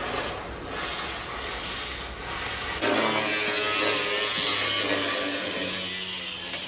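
Angle grinder with a cut-off wheel cutting through a steel stair stringer, giving a dense grinding hiss. From about three seconds in, a steady low whine comes through under load, the grinder moaning, which is how you know it is cutting well.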